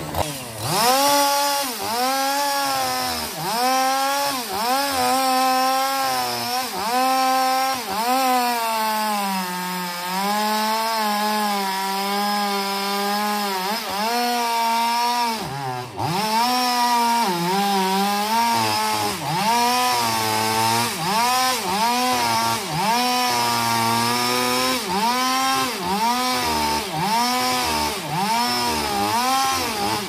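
Two-stroke chainsaw crosscutting a large log, engine running at high revs. Its pitch dips and recovers about once a second as the chain bogs into the wood, with a steadier stretch in the middle.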